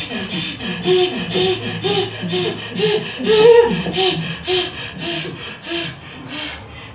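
Several actors' voices in a fast rhythmic vocal pattern of short pitched syllables and breathy hisses, about three a second. It is loudest in the middle and thins out near the end.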